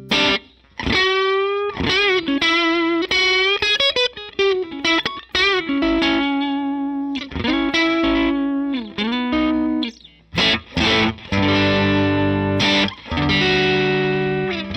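Semi-hollow electric guitar played through an overdriven amp. It starts with a single-note lead line full of string bends and vibrato, then from about six seconds in it plays sustained, ringing distorted chords with short breaks between them.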